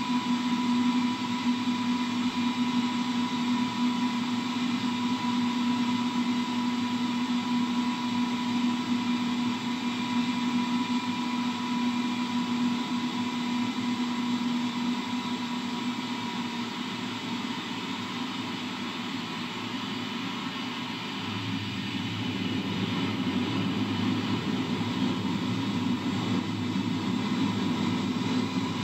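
Cabin noise inside an Airbus A319 on final approach: steady jet engine hum and rushing air, with a thin whine above. The engine hum fades a little past halfway, and after a short lull a deeper rumble rises in the last several seconds, as the plane is low over the runway.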